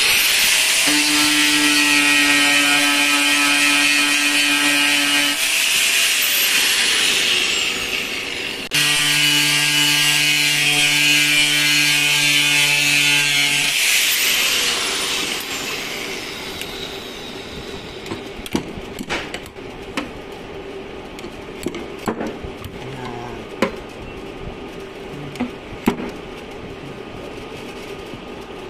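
Angle grinder running twice against the steel of a dented car quarter panel. Each run is a steady high whine of about five seconds, and after each the pitch falls as the disc spins down. Then come lighter scattered clicks and taps.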